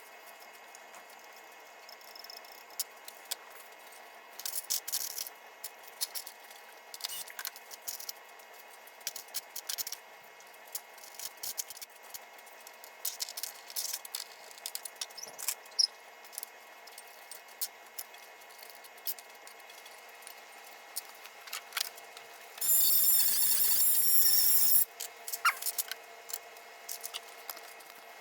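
Scattered small clicks, taps and rattles of pinball playfield parts and hand tools being handled during assembly, in sped-up playback. About 23 seconds in there is a loud two-second burst of steady noise.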